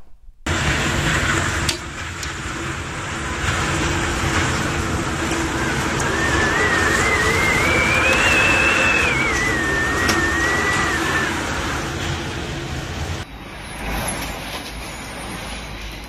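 Thunderstorm gale with heavy rain: loud, steady wind noise. About six seconds in, a high wavering whistle rises and falls for around five seconds. The sound cuts abruptly near the end to a quieter stretch of storm noise.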